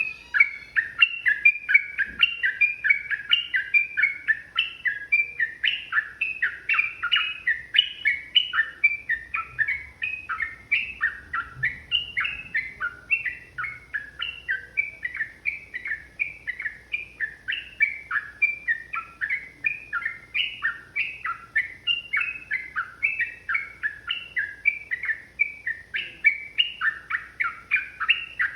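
Yellow-vented bulbul singing a long, rapid, unbroken run of short chattering notes, several a second.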